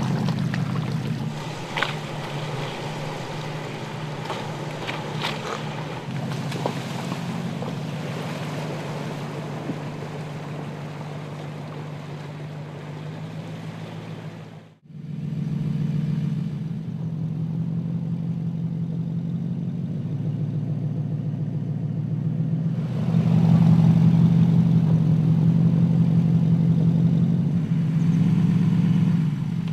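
Porsche Cayenne S's 3.6-litre twin-turbo V6 running steadily at low revs as the SUV crawls off-road, with a few sharp clicks in the first seconds. The sound cuts out for a moment about halfway, then the engine returns and grows louder for the last few seconds as it pulls over logs.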